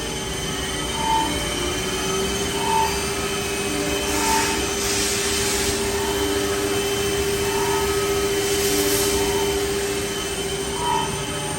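Smart VX 350-5AX five-axis CNC machining center running: a steady machine whine that steps up slightly in pitch about two seconds in and holds until near the end, with short beeps repeating about every second and a half and two bursts of hiss.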